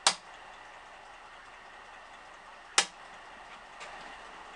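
Two sharp clicks about three seconds apart, typical of switches being flipped on a drill press's electrical control panel, over a faint steady hiss.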